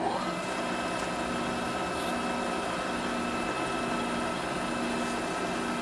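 Milling machine running with a slitting saw spinning free on its arbor, not yet cutting. It makes a steady whine over a low hum, settling to speed at the very start.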